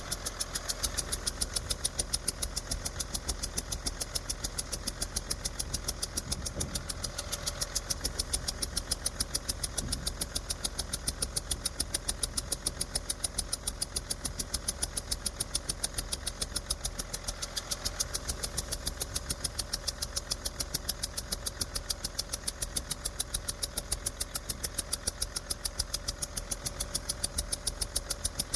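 Komatsu PC300-7's 6CT six-cylinder diesel engine idling steadily, with a sharp regular tick about three to four times a second. The engine has a blown head gasket, and the rhythmic pulse goes with compression leaking past it.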